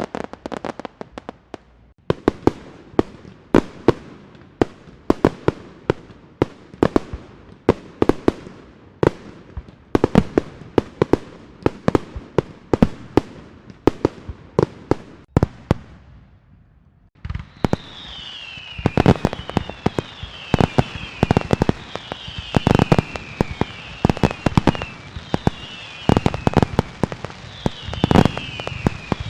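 Fireworks going off: a rapid string of sharp bangs, several a second, with crackle. About seventeen seconds in the recording changes to a steady hiss with repeated falling whistles and further bangs.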